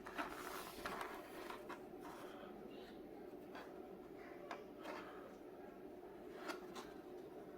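Faint rustling and a few sharp clicks from a small die-cast model car's cardboard box and plastic packaging being handled, over a steady low hum.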